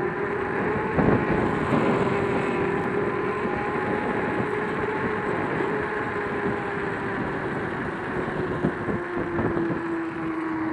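Joyor S10-S electric scooter under way: a steady hub-motor whine that slowly drops in pitch over the last few seconds, over tyre rumble and wind on the microphone, with a few short knocks from bumps.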